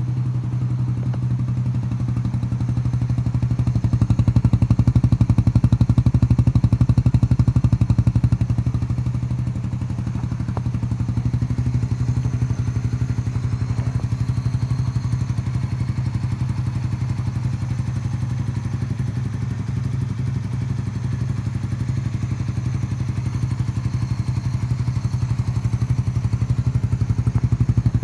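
Suzuki Satria motorcycle exhaust running steadily with a fast even beat, a little louder for a few seconds near the start, then settling back. The exhaust is either the stock muffler or one with its honeycomb insert removed.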